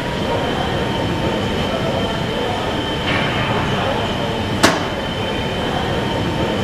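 Steady machinery hum and rumble of a workshop hall, with a faint high whine held throughout and one sharp click a little after halfway.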